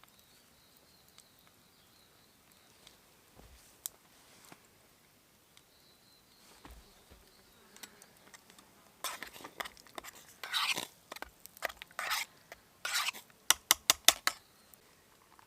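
A utensil scraping and clinking in a cooking pot over the campfire: several scrapes in the second half, then a quick run of light clicks, with the first half mostly quiet.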